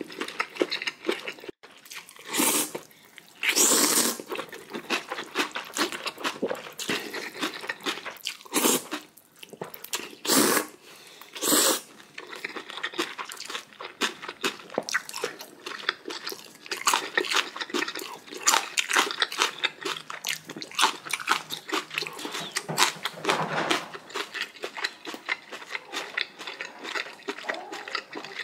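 Close-miked eating sounds from a person eating cold noodles with meat: several loud half-second slurps or bites in the first twelve seconds, then steady wet chewing and crunching.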